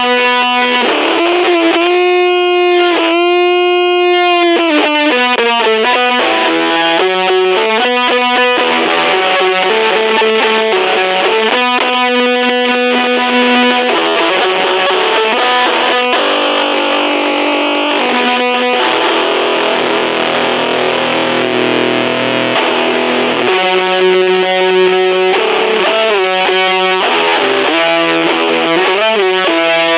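Electric guitar played through an overdrive pedal into a small battery-powered Junkbox Amplification Death Metal Drone amp, giving a distorted tone. It plays single-note lines with wavering bends a few seconds in and a held chord past the middle.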